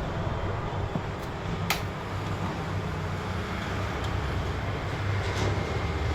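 Hot air rework station blowing steadily while heating a phone's battery connector into place, with one sharp click about 1.7 seconds in.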